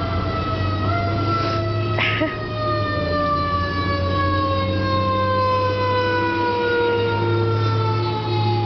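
A siren-like tone with several overtones, slowly and steadily falling in pitch, over a steady low hum. A short splash of water about two seconds in, as a young alligator thrashes at the bait.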